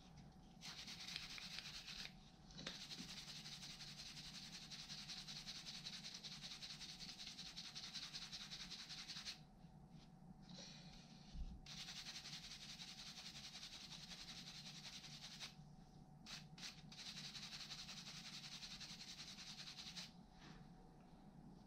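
Rusty steel hand tool being scrubbed by hand to clean it: a steady dry scratching in long spells. It breaks off twice, about nine seconds in and again around fifteen seconds, and stops a little before the end.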